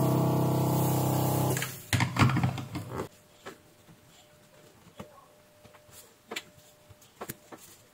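Electric desoldering gun's vacuum pump humming steadily, then switched off about a second and a half in. A few faint clicks and light handling noises follow.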